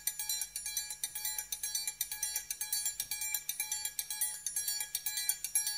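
Music: the intro of a song, with quick, evenly spaced bright bell-like notes in a steady rhythm.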